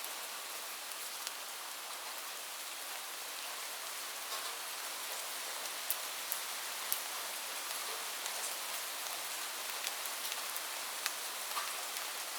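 Steady rain falling, a continuous hiss with frequent sharp ticks of individual drops striking a hard surface.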